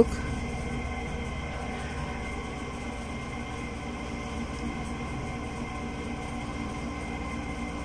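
Steady low hum and hiss of background room noise, with no distinct events.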